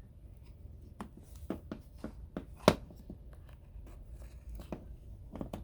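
Scattered small clicks and scrapes of a thin pry tool working between an iPhone XS Max's display and its metal frame, with one sharper click about two and a half seconds in.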